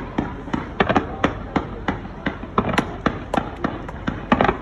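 Fireworks display: a rapid, irregular series of sharp bangs, about four a second.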